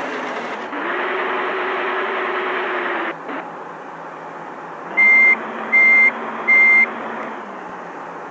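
A vehicle's reversing alarm beeps three times, each beep short and high-pitched, about three-quarters of a second apart, over the running noise of a large vehicle's engine.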